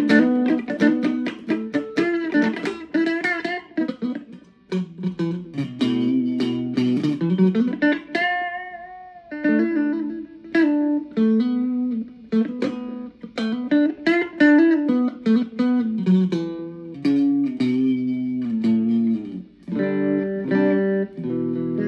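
Ibanez Gio electric guitar with Tokai pickups played through an amplifier: a run of picked single-note lines with several string bends, ending in denser chordal playing.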